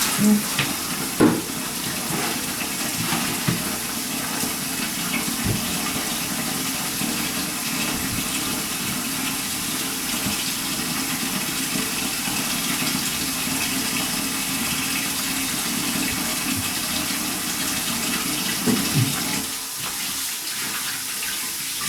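Water running steadily from a kitchen tap into the sink, with a couple of short clunks. The flow gets a little quieter near the end.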